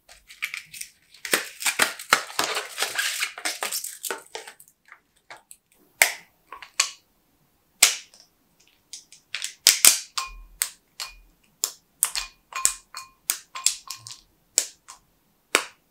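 Chocolate bar wrapping torn open and unwrapped with dense crinkling for the first few seconds. Then a long series of short, sharp snaps as the milk chocolate bar is broken by hand into pieces over a ceramic bowl.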